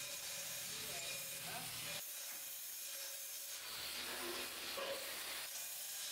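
Stick arc welding on steel bar: a steady hiss from the welding arc, which shifts abruptly about two seconds in.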